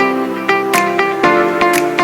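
Background music: plucked guitar-like notes over a steady beat, with strikes about four times a second.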